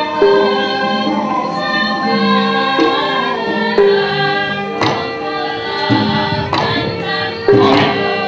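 Javanese gamelan music accompanying a wayang shadow-puppet play, with voices singing over held metallophone notes and sharp percussive strokes about once a second.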